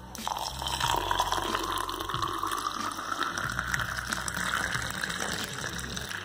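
Milk poured in a steady stream into a stainless steel tumbler, splashing and frothing, with a pitch that rises slowly as the tumbler fills. It stops near the end.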